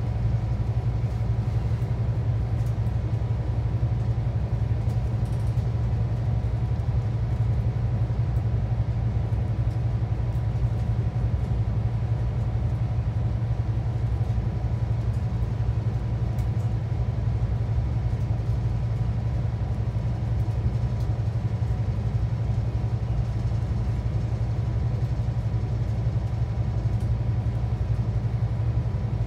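Steady low drone of a Scania K360EB4/Irizar i6 coach cruising at motorway speed, heard from a passenger seat inside the cabin. The rear-mounted five-cylinder diesel and the road noise hold an even pitch with no gear changes.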